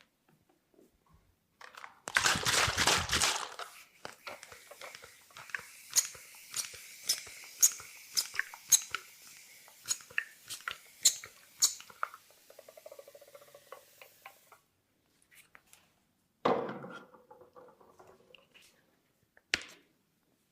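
Hands working on a head during an ASMR massage. First a loud rubbing of about two seconds, then a run of sharp taps or snaps about two a second over a faint rustle. A short rubbing burst and one sharp snap come near the end.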